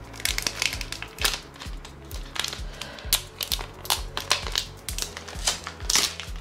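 Crinkling, crackling plastic wrap being peeled and pulled off a laptop charger's power brick and cord, in many short irregular crackles. Background music with a steady low beat plays underneath.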